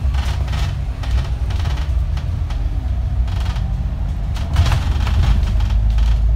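Double-decker bus heard from inside on the upper deck while it drives along: a steady low rumble from the engine and road, with brief rattles and knocks from the cabin a few times.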